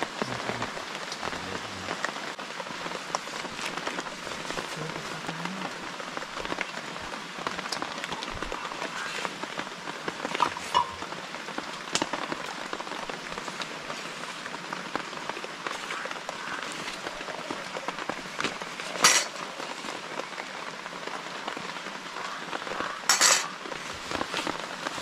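Heavy rain falling steadily, with scattered drips and ticks. Two louder short knocks or clatters stand out, one about three-quarters of the way through and a slightly longer one near the end.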